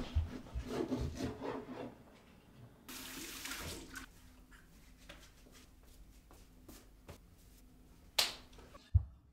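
Water splashing and running briefly, with scattered handling sounds at first, then about a second of steady running water, then quiet broken by a sharp knock near the end.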